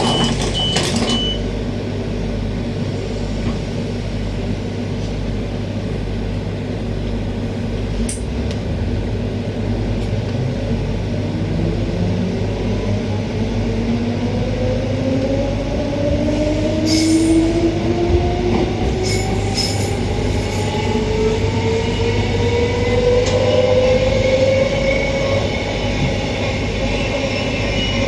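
Queensland Rail EMU electric train heard from inside the carriage as it pulls away. Door warning beeps end and the doors close in the first second, over a steady low hum. From about halfway in, the traction motor whine rises steadily in pitch as the train accelerates, with a few clicks from the running gear along the way.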